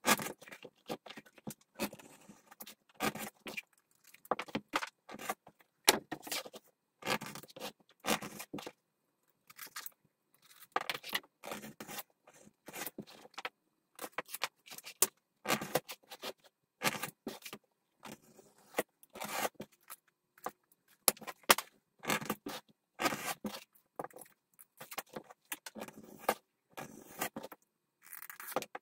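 A hand tool working the edge of a piece of leather in many short, irregular scraping strokes, with a couple of brief pauses.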